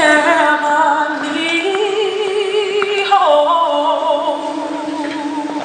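A single voice singing slow, long held notes with wide vibrato, stepping up to a higher note about a second and a half in and back down about three seconds in.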